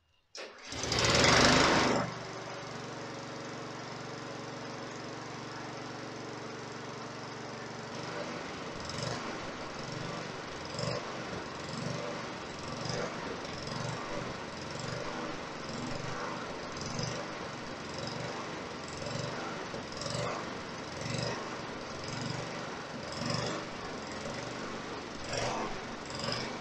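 McCulloch M56-190AWFPX petrol lawn mower engine starting with a loud burst about half a second in, then running steadily. From about eight seconds in its note pulses roughly once a second. It is being run to warm up before an oil change.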